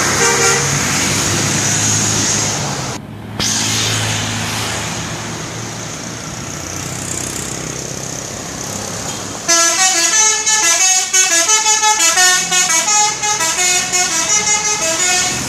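Indonesian telolet musical bus horn playing a loud, fast multi-note melody for about six seconds, starting about nine and a half seconds in. Before it, a short horn toot at the very start and steady road traffic with a bus engine running.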